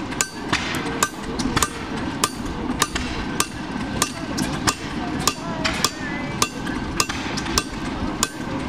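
Hammer blows on a handled farrier's top tool held against a draft horseshoe on an anvil, sharp metal strikes at a steady rhythm of about two a second, with the anvil ringing between them.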